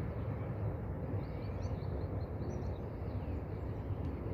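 Steady low outdoor rumble, with a quick run of small bird chirps over it in the middle.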